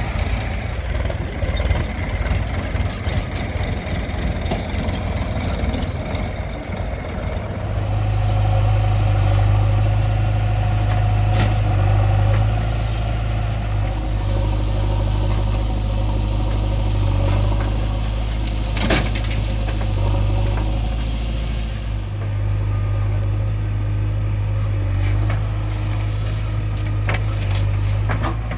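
Heavy diesel engine running unevenly, settling about seven seconds in into a steady, deep idle. One sharp knock about two-thirds of the way through.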